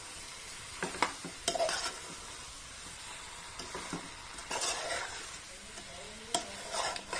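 A metal spoon stirring and scraping raw chicken pieces through frying masala in an open aluminium pressure cooker, with irregular scrapes against the pot over a steady sizzle.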